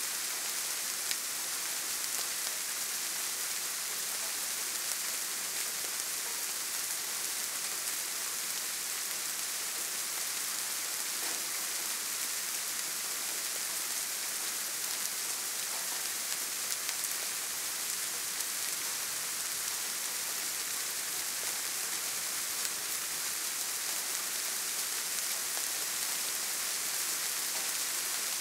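Soft rain falling steadily, an even, unbroken hiss of drops that is brightest in the high end.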